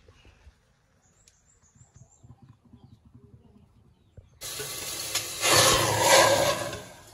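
Water pouring and splashing off wet raw pork intestines into a metal cooking pot. It starts suddenly about four seconds in and is loudest in the middle, after a few seconds of only faint low rustling.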